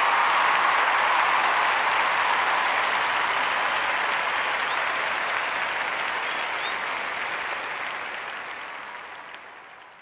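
Crowd applause, a dense steady clapping that fades away over the last few seconds.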